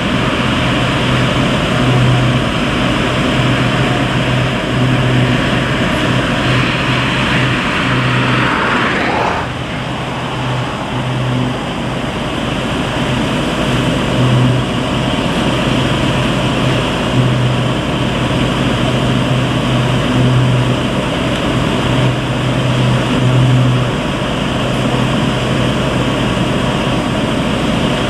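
Peat loading plant machinery running steadily, with a low droning hum that swells and fades unevenly. A higher rushing noise drops away about nine seconds in.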